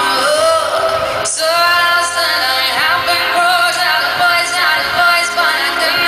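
Live pop song: a woman's lead vocal holding and bending sung notes over loud, full band backing, recorded from the crowd.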